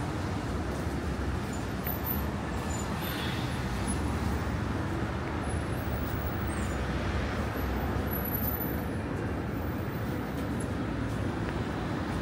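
Steady urban road-traffic noise: a continuous hum of passing vehicles.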